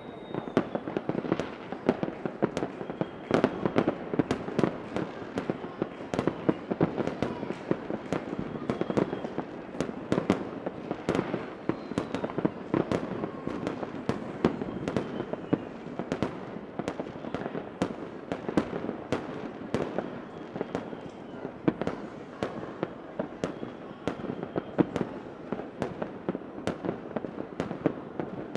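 Fireworks going off continuously: many sharp bangs and crackles over a steady rumble, with faint rising whistles of rockets every few seconds.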